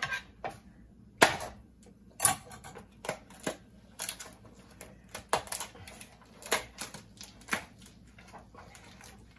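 Clear plastic tub of shaved Parmesan being prised open by hand: a run of sharp, irregular plastic clicks and crackles, about one loud snap a second with smaller ticks between, as the lid is worked loose.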